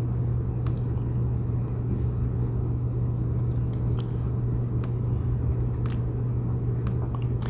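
A steady low rumble with a deep hum, holding level throughout, with a few faint ticks over it.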